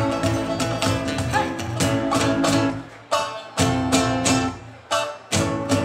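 Live acoustic folk music: an oud and a long-necked lute are plucked over a cajón. The first half is a continuous run of plucked notes. From about three seconds in, the ensemble plays a series of sharp accented hits together, with short gaps between them.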